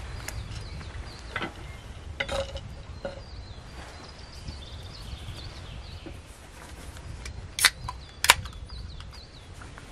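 A few soft handling knocks, then near the end a drink can's tab being pulled open, two sharp cracks less than a second apart. Faint high chirps run in the background.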